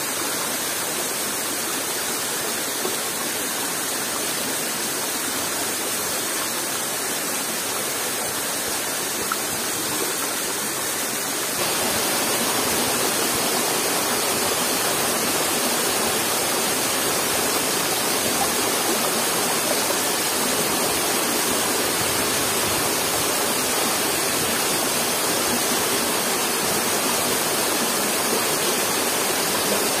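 Waterfall rushing steadily; about twelve seconds in the rush abruptly becomes a little louder and brighter.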